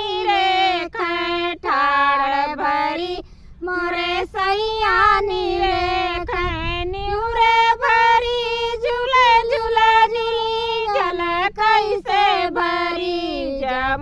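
A woman singing a Holi folk song (holi geet) solo in a high voice, with long held and ornamented notes and a short breath pause about three seconds in.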